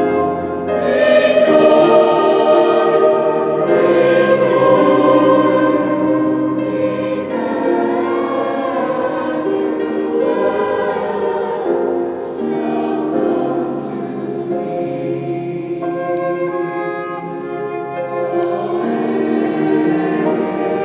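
Mixed youth choir singing a hymn in parts, accompanied by flute and piano.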